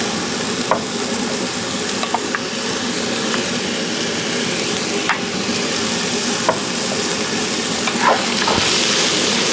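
Ham and vegetables sizzling in hot canola oil in a wok on high heat, being stirred, with a few sharp clicks against the wok. The sizzle gets a little louder near the end.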